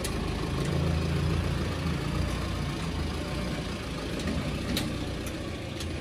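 A vehicle engine running steadily with a low hum, with a few light clicks over it.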